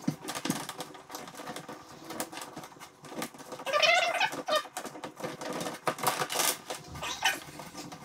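Irregular clicking and rustling of electrical cable being worked through a downlight hole in a plasterboard ceiling, with a brief rising squeak about four seconds in.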